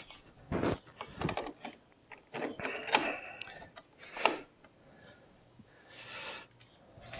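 Clicks and light knocks from a patio door handle and lock mechanism being fitted back together by hand: a handful of separate sharp clicks spread over several seconds, with a brief rustle near the end.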